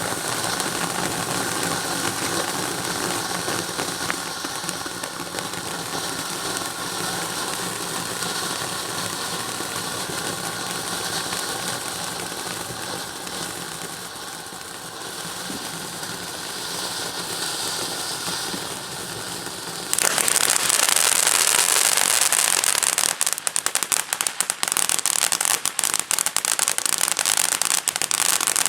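Weco Palermo firework fountain burning with a steady spraying hiss. About 20 seconds in it changes suddenly to a louder, brighter phase that soon fills with rapid crackling.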